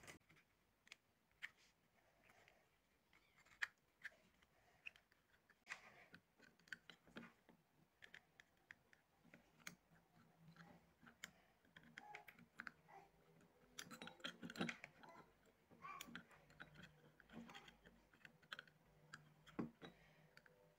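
Faint, scattered light clicks and taps of metal tweezers and a soldering-iron tip against an LED bulb's circuit board while desoldering a failed LED chip, with a denser run of clicks about two-thirds of the way through.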